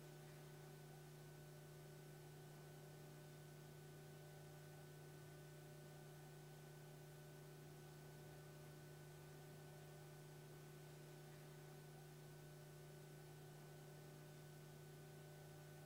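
Near silence with a faint, steady electrical hum and no other sound.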